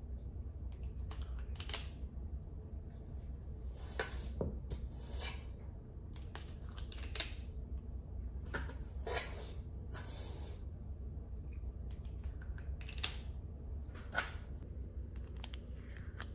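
A 1⅓-ounce squeeze-handle cookie scoop scraping dough from the side of a stainless steel mixing bowl, with the metallic clicks of its release lever, repeated at irregular intervals, over a low steady hum.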